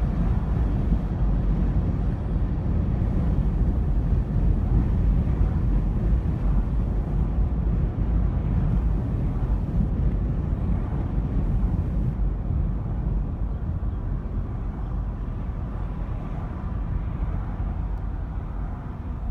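Road noise from a car driving on a highway: a steady low rumble of tyres and wind that eases off a little toward the end.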